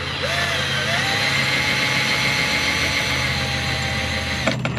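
Electric power tool motor winding up over the first second, running steadily, then cutting off suddenly near the end.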